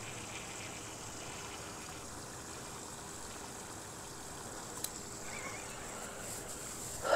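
Faint, steady outdoor background hiss with a thin, steady high whine, and one light click about five seconds in.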